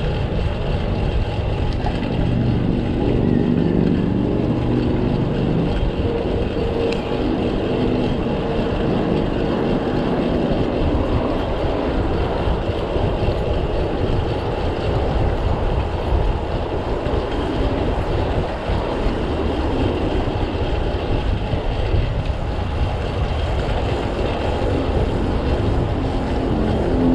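Steady rumble of street traffic and wind buffeting the microphone, heard from a moving bicycle in city streets. A vehicle's engine hum stands out for a few seconds near the start.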